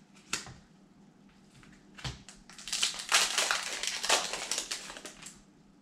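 Foil Pokémon booster pack wrapper crinkling and tearing open in the hands, a dense crackle lasting about two and a half seconds, after a single light tap about a third of a second in.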